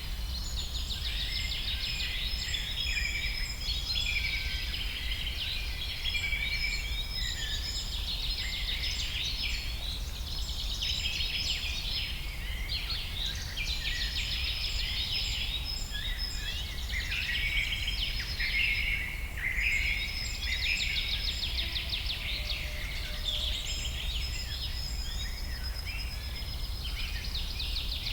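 A dense chorus of many small birds chirping and trilling at once, with no let-up, over a steady low hum.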